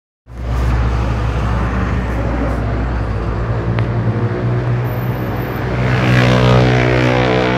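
Steady low drone of military aircraft engines flying over, a stack of even tones that grows louder about six seconds in.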